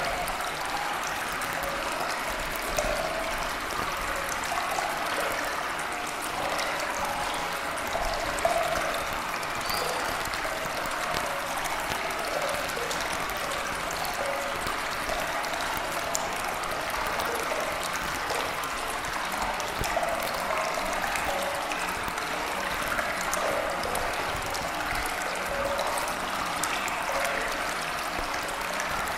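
Steady running water, like a babbling stream, flowing evenly without break.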